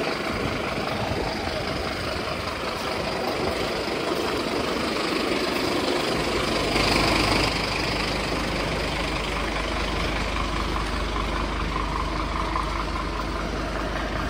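Diesel engine of a Scania fire engine idling with a steady low hum that grows stronger about six seconds in.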